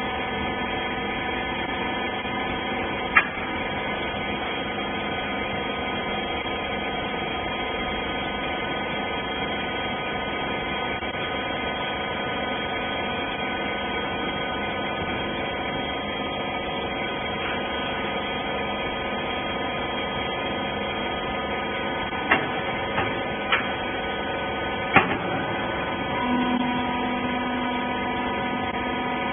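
Vertical rags baler's hydraulic power pack running: a steady hum of several fixed tones. There is a sharp knock about three seconds in, a few more knocks toward the end, and a lower tone joins near the end.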